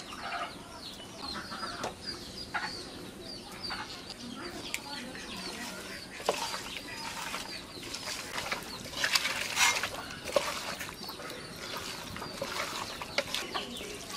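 Chickens clucking, with many short high chirps in the first half. Louder wet squelching comes around six seconds in and again around nine to ten seconds in, as a hand mixes raw mutton, onion and spices in an aluminium pot.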